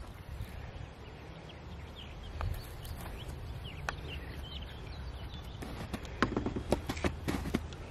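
Open-air ambience with a steady low wind rumble and a few short bird chirps. Near the end comes a quick run of sharp clicks and knocks, about four a second for two seconds, close to the microphone.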